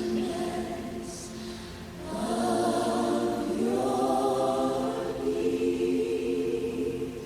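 Choir of voices singing long held notes in harmony, with little sign of instruments. The singing thins briefly, then swells louder about two seconds in.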